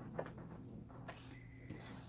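Faint wet squishing of a hand stirring and kneading sticky glue slime in a bowl, with a couple of soft clicks.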